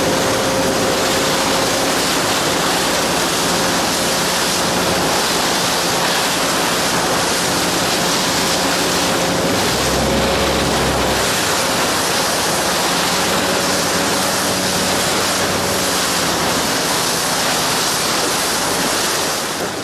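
Boat under way: a steady rush of water and wind, with a faint steady engine hum underneath and a brief low rumble about halfway through.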